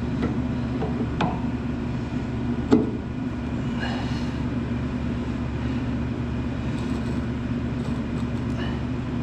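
An engine idling steadily, with a few sharp clicks of small parts being handled, the loudest a little under three seconds in.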